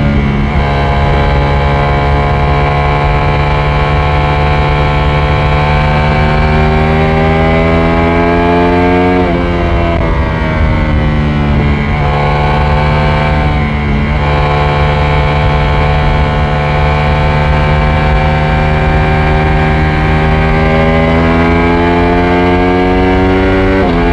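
Ducati Panigale V4S's V4 engine pulling hard at speed, its pitch climbing slowly in each gear, with quick upshifts about nine and fourteen seconds in and again near the end. A steady low rush runs beneath it.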